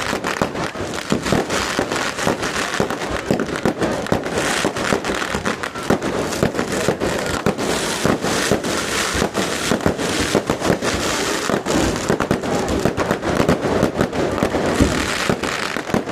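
Fireworks going off in a rapid, unbroken stream of sharp cracks and bangs, many bursts every second, for the whole time.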